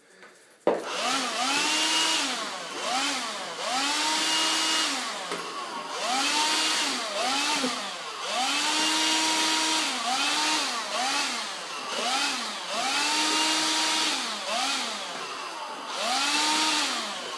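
Vacuum cleaner switched on about half a second in and running. Its motor whine repeatedly rises, holds and drops back about once a second as the airflow through the nozzle changes.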